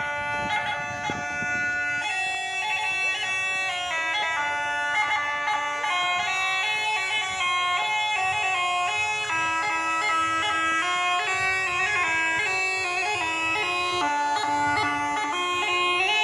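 Music on a bagpipe-like wind instrument: a steady drone under a melody that moves in steps from note to note.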